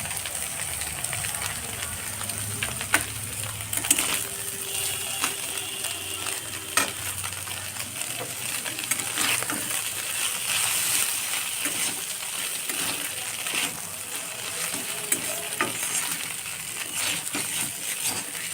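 Fish and onions sizzling in hot oil in a pan, with a spatula scraping and knocking against the pan now and then as they are stirred.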